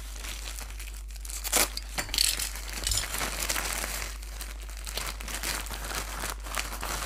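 Plastic courier mailer being slit with a snap-off utility knife and pulled open by hand, the plastic crinkling and rustling, with a short sharp sound about a second and a half in.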